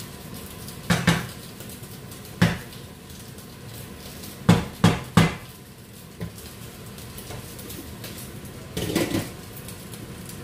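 Kitchen pots and utensils knocking against each other: a few separate sharp clinks, then three quick ones in a row, and a short clatter near the end.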